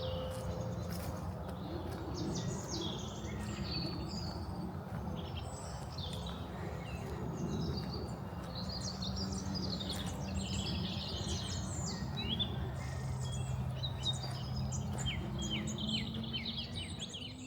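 Several songbirds singing and chirping, short calls overlapping one another, over a low steady hum.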